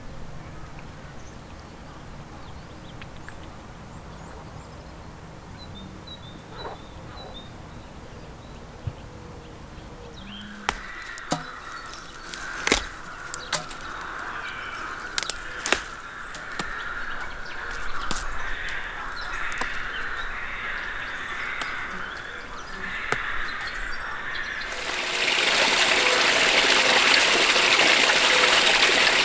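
Quiet outdoor ambience with faint bird chirps, then a string of sharp clicks and knocks, and near the end a loud, steady rush of running water.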